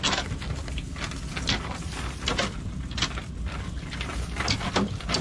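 Cast net being handled in a wooden boat as fish are picked out of the mesh: irregular clicks and knocks, about two a second, over a steady low rumble.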